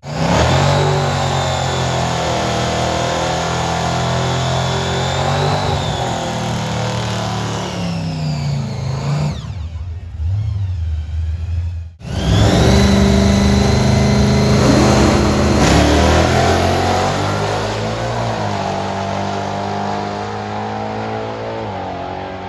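Loud drag-racing engines at high revs in two separate runs: the first starts suddenly, holds steady, then drops in pitch near the middle; after a sharp break a second starts just as loud and slowly fades.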